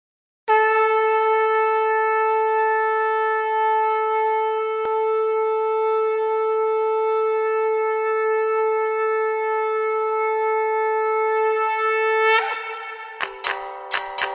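A conch shell (shankh) blown in one long, steady note for about twelve seconds, wavering slightly as it ends. About a second later, plucked-string music begins.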